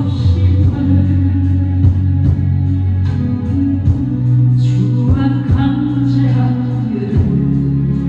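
A woman sings a Korean gospel praise song into a microphone over a recorded backing track with a steady beat, about two beats a second.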